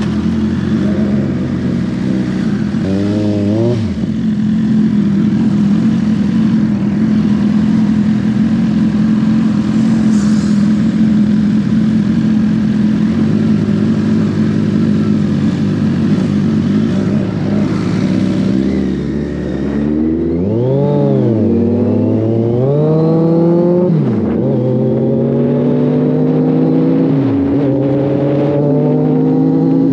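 Inline-four superbike engines idling together, one blipped briefly near the start. Then a motorcycle pulls away hard and accelerates through the gears: the revs climb and drop back at each of several upshifts.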